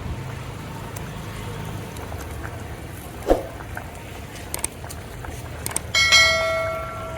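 A metal vessel or utensil is struck about six seconds in and rings with several clear tones that fade away, over a steady low rumble; a single dull knock comes about three seconds in.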